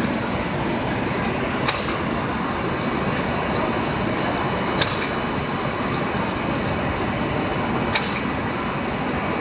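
Biscuit-sandwiching machine on a production line running with a steady mechanical noise, with a short sharp hiss about every three seconds, three times, as its row of sandwiching heads cycles.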